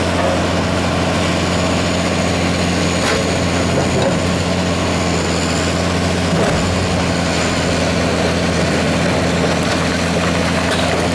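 Boat engine idling with a steady, low drone that does not change.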